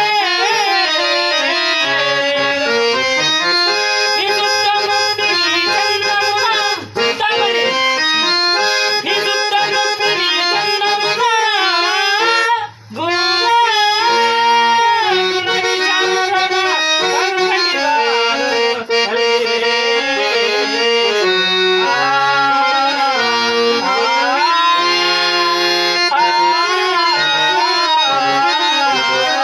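A man singing a Telugu stage-drama verse (padyam) in long, ornamented melodic runs, accompanied by a harmonium holding and stepping through chords. The music breaks off briefly twice, about seven and thirteen seconds in.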